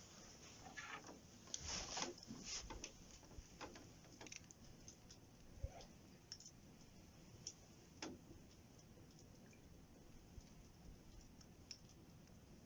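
Wood campfire crackling, with scattered small pops and clicks, a quick run of them in the first couple of seconds and a few sharper single pops later.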